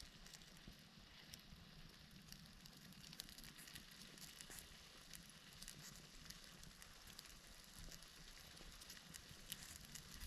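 Faint crackling of a wood campfire: scattered small pops and snaps over a low, steady hiss.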